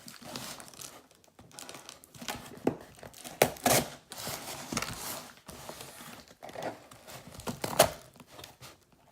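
A shipping package being crinkled and torn open by hand: irregular rustling with a few sharp rips, the loudest about three and a half seconds in and again near the end.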